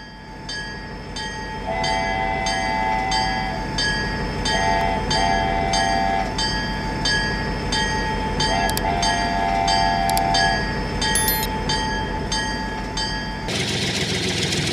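A steady rhythmic clacking, a little under two beats a second, with short horn-like tones sounding in three spells. Near the end it changes abruptly to a denser, steady noise.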